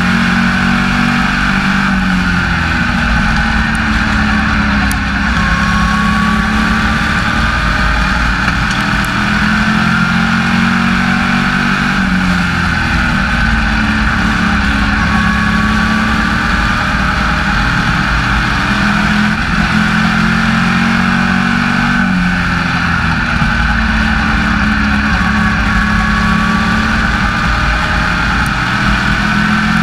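SK Lite Modified race car's V8 engine at racing speed, heard from inside the cockpit: it lets off and drops in pitch about every nine or ten seconds for a corner, then climbs again under power down each straight.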